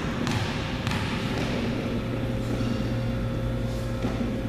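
A basketball bouncing twice on a hardwood gym floor within the first second, over a steady hum and the murmur of a large gymnasium.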